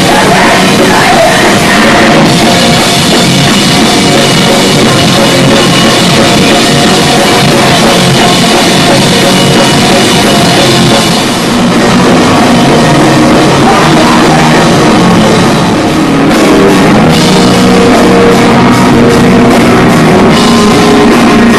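Loud punk rock music: a full band with drum kit playing without a break.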